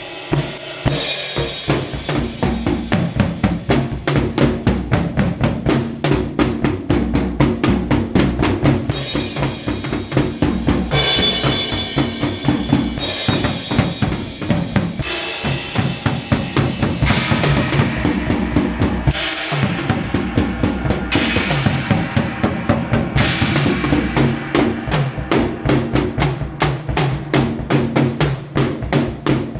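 Music led by a drum kit playing a fast, steady beat on bass drum and snare, with cymbal crashes about every two seconds and low sustained notes underneath.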